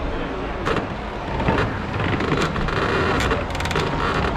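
A Jeep driving on an off-road demonstration course, heard over a steady din, with scattered knocks and clatter in the second half.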